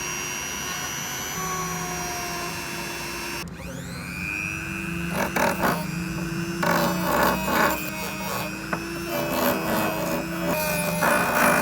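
A power tool running with a steady hum and rasping stretches as it works against metal, the sound of grinding or sanding rusty vise parts. The sound shifts suddenly about three and a half seconds in, and the rasping comes in repeated passes after that.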